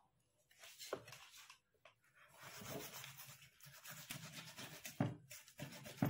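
Knife sawing through a crisp-fried brinjal-and-potato pakora on a wooden board: faint crunching and scraping of the battered crust, with a few sharp clicks, one about a second in and two near the end.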